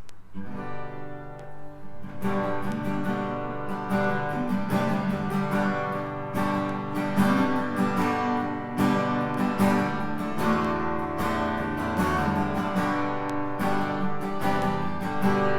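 Acoustic guitar strumming the introduction to a worship song, with steady repeated strums.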